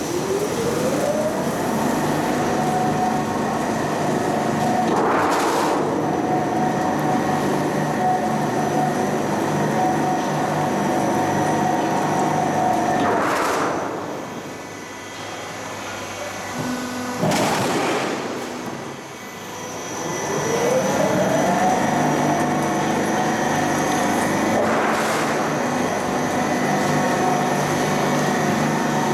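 Corrugated sheet roll forming machine: its drive motor spins up with a rising whine and runs steadily with the forming rollers turning. It winds down about halfway through, then starts up again with the same rising whine. Sharp knocks come four times, the loudest during the pause.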